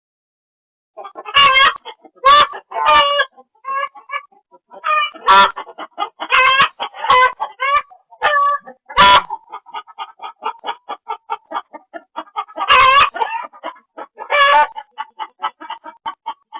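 Chickens clucking, starting about a second in: runs of short, quick clucks broken by louder, drawn-out squawking calls.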